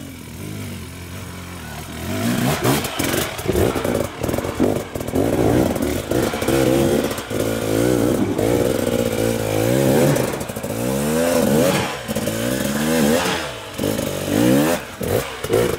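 Husqvarna 300 two-stroke enduro motorcycle engine revving up and down in repeated bursts as the bike is worked up a steep, rocky climb. It gets louder about two seconds in, with scattered knocks.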